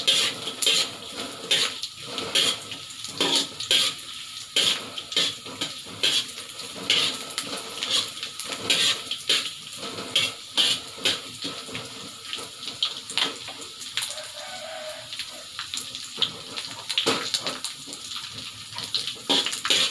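Dried shrimp sizzling in hot oil in a wok, with a metal slotted spatula repeatedly scraping and knocking against the pan as they are stirred.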